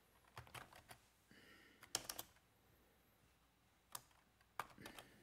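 Faint computer keyboard keystrokes typing a word, in a few separate clusters of clicks.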